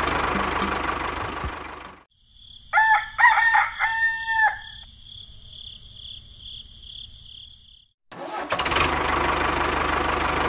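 A small motor runs steadily and cuts off about two seconds in; then a rooster crows once, rising and falling, over steady high tones. The motor noise starts again near the end.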